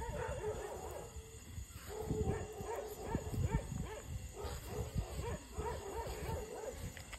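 An animal's wavering, whining cry in three long stretches, with soft knocks and rustling underneath.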